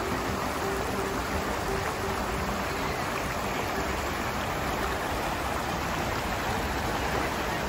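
Shallow rocky mountain stream running over boulders: a steady rush of water. Faint music fades out in the first few seconds.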